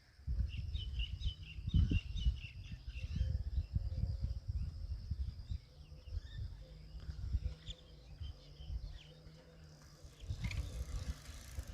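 Birds chirping in quick runs during the first half, over a faint steady insect drone and a louder low rumble on the microphone.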